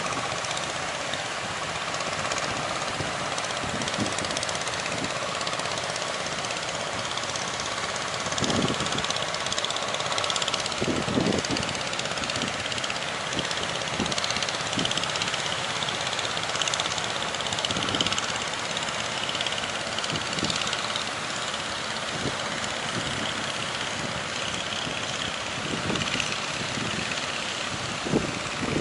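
Steady rush of surf breaking on the shore, with wind buffeting the microphone in irregular low thumps.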